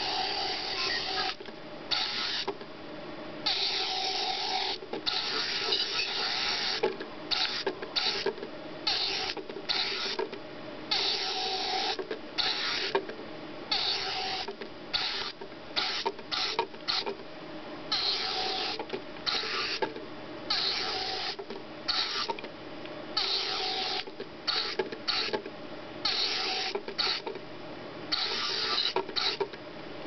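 Zibits miniature remote-control robot's small electric motor whirring in short stop-start bursts, many times over, as it is driven forward and turned with its remote.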